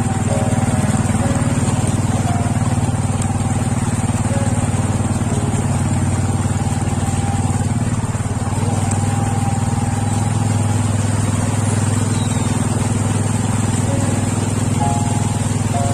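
Small motor scooter engine running steadily while riding through shallow floodwater, with the water swishing against the front wheel.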